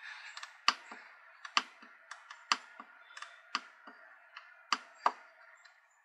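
Push switch under the jog wheel of a Husqvarna 435X Automower pressed and released by finger, giving about a dozen sharp clicks, several in quick pairs as it latches at the bottom and pops back up. The switch is faulty: in certain positions it sticks down instead of returning, and it needs replacing.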